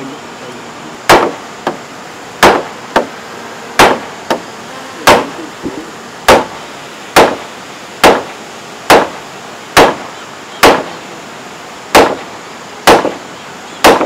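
Hammer blows on a timber frame: a steady run of sharp, ringing strikes about once a second, with a few lighter taps in between.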